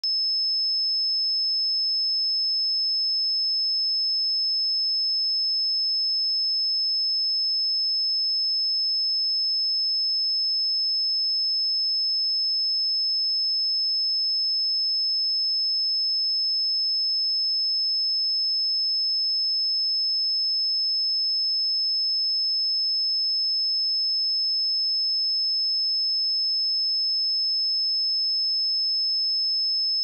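A single steady 5217 Hz sine wave test tone, one unchanging high-pitched pure tone held at constant level.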